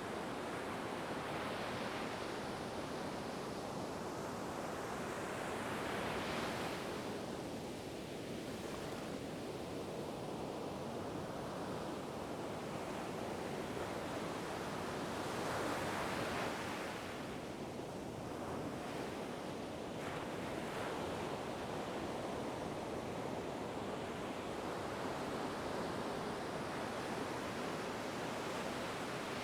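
Ocean waves breaking and washing in a steady surf. Two waves swell up louder, about six and sixteen seconds in.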